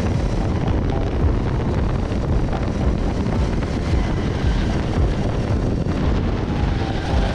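Onboard sound of a rental go-kart at racing speed: the kart's engine running under heavy wind buffeting on the microphone.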